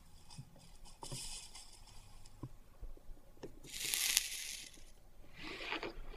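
Soldering iron melting solder and flux onto the end of a hinge on a stained glass box: faint crackling with small taps, and a louder burst of hissing sizzle about four seconds in, with a shorter one near the end.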